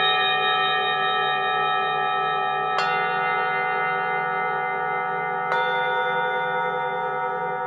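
Metal bells of the singing-bowl kind, struck twice about a third and two-thirds of the way in. Each strike rings on with many sustained tones over the ringing of the one before, and the lower tones waver slowly.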